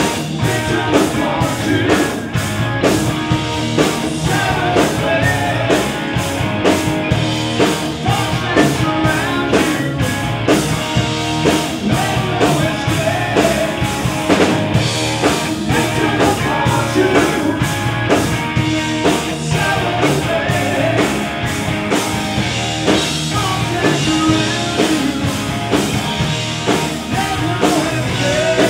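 Live rock band playing: a male lead vocal sung over a steady drum beat, electric guitars and bass.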